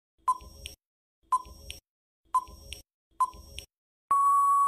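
Quiz countdown timer sound effect: four short electronic beeps about a second apart, then a long steady beep about four seconds in as the countdown runs out.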